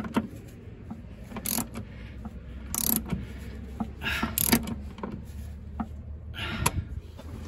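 Ratchet wrench clicking and metal tools clinking in short separate bursts as the upper ball joint nut is tightened, over a low steady hum.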